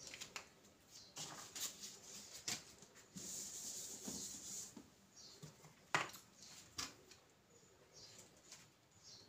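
A whiteboard eraser rubbing across a whiteboard in short strokes, then in a steadier wipe lasting about a second and a half. Two sharp taps follow, the louder one about six seconds in.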